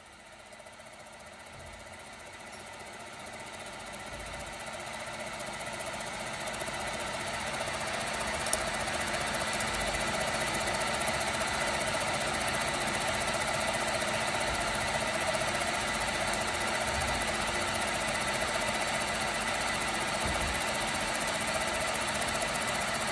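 Electric mixer running steadily, its paddle stirring a cement slurry in a plastic tub. The motor noise grows louder over the first several seconds, then holds steady.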